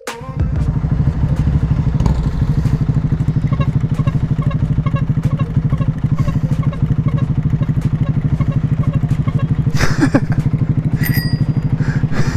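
Honda Grom's 125 cc single-cylinder four-stroke engine idling steadily with an even, rapid putter while stopped in traffic. A brief knock is heard about ten seconds in.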